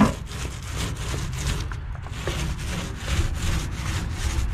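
Paint roller spreading Herculiner roll-on bed liner across a pickup truck's bed floor: a repeated gritty rubbing, one stroke after another, a few times a second.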